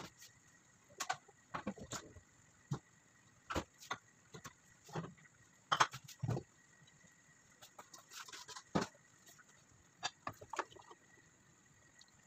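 Thick oat soup boiling in an aluminium pot, with irregular thick bubbles popping and plopping at the surface. The soup is at a full boil and near done.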